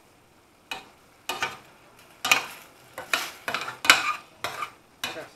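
Spoon stirring and scraping pork and vegetables around a stainless steel frying pan: a run of short, irregular scrapes starting about a second in.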